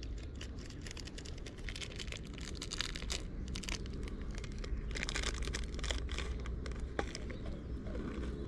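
Hiking boots crunching and scraping on gritty rock in a quick, irregular run of steps, over a steady low rumble.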